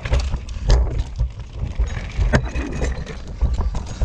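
Norco Range full-suspension enduro mountain bike riding fast down a dry, rocky dirt trail: tyres rolling and rattling over dirt and rock, with sharp clacks from the bike hitting rocks, the loudest about a second in and just past halfway. A low rumble of wind buffets the camera microphone.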